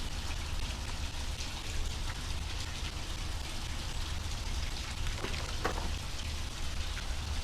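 A steady hiss with a low hum underneath, and a few faint taps and crinkles about five seconds in from an airsoft barrel being slid out of its protective plastic tubing.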